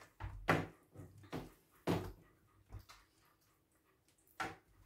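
Hands working a wet spice marinade into whole raw fish on a metal baking tray: four or five short, separate handling noises of fingers on the fish and knocks against the tray.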